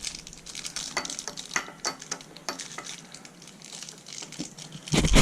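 Metal sockets clinking and rattling in quick, irregular clicks as they are sorted through for one that fits a bearing race, with a loud thump about five seconds in.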